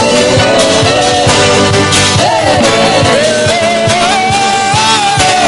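Live gospel worship song: a man sings long held, wavering notes over his Fender acoustic guitar, with the band keeping a steady beat beneath.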